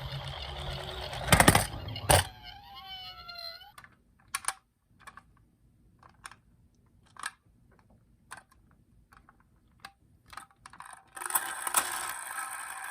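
A toy ambulance's electronic siren wails in gliding tones, with two sharp clicks, and cuts off about four seconds in. Then come scattered small clicks and clacks of toy cars being handled, and near the end a steady hissing sound starts.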